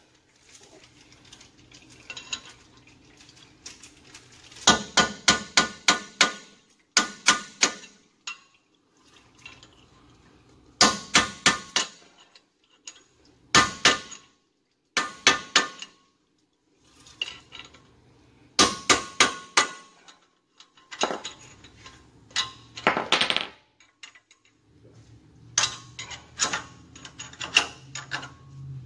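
Repeated bursts of sharp metal-on-metal clinks and taps from steel hand tools working the inner spindle nut on a bus's rear wheel hub, several strikes a second in each burst. One strike about two-thirds of the way in rings on briefly.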